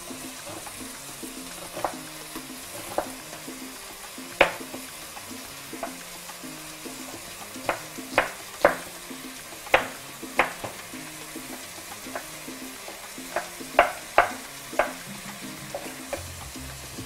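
Knife chopping red onion on a wooden cutting board: irregular sharp knocks, a few at first and then in quick runs through the second half. Underneath is the steady sizzle of sausage, onion and guanciale frying in a pan, with soft background music.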